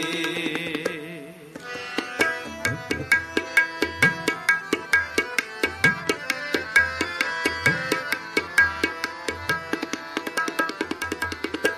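Tabla and harmonium playing an instrumental interlude of shabad kirtan. The singing voice trails off about a second in, and after a brief lull the tabla breaks into quick strokes, its bass drum gliding upward in pitch every second or two over the harmonium's held notes.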